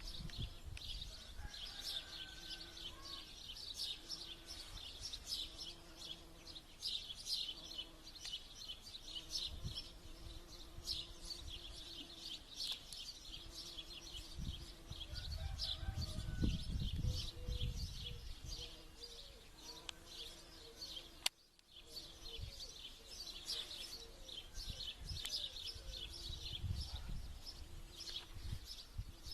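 Spring pond chorus: many birds singing and chirping in high notes, over frogs calling in a low note repeated in pulses of about a second. Wind rumbles on the microphone for a few seconds in the middle, and a sharp click with a brief drop-out comes about 21 seconds in.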